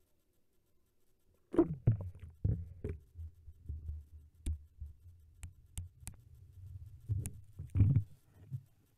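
Muffled thumps, knocks and rumbling from a homemade underwater camera box, a dashcam sealed in a plastic food-storage box, as it is lowered into the lake and settles, heard through the microphone inside the sealed box. A burst of heavy thumps starts about a second and a half in, sharp clicks come through the middle, and another loud thump comes near the end.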